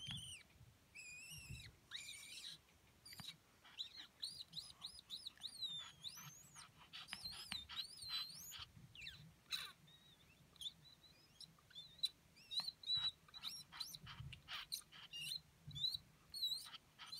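Japanese Chin dog making high-pitched whining squeals: many short squeaks that slide up and down in pitch. They come thick and fast for several seconds in the middle, then thin out into scattered yips.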